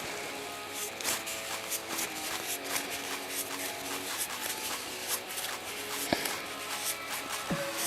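Soft background music with held notes, over scattered clicks and rubbing from a plastic gear oil bottle's nozzle being screwed into an outboard lower unit's drain hole.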